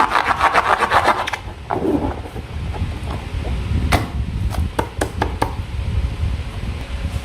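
Slime being worked by hand: a rapid sticky crackling for about the first second and a half, then low handling noise with a few sharp clicks around four to five seconds in.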